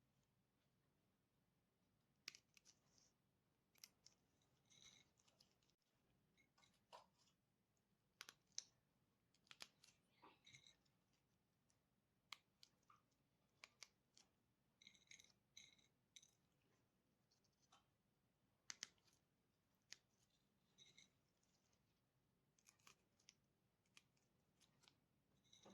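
Faint, scattered clicks and light taps of small objects being handled, with a few brief ringing clinks.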